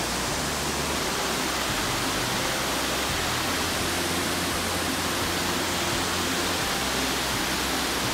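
Waterfall pouring into a boulder-strewn river, with the river running fast over the rocks: a steady, unbroken rush of water.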